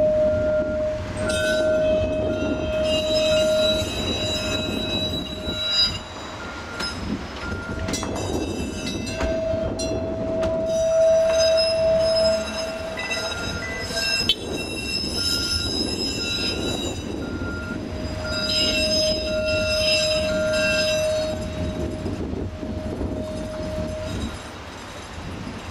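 PCC streetcar rolling slowly around a curve of track, its steel wheels squealing on the rails in long high-pitched stretches over a low rumble. A short beep repeats steadily, about every two-thirds of a second.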